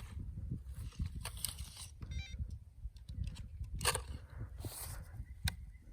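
Low rumble with scattered clicks and knocks of handling, and a short run of faint electronic beeps about two seconds in.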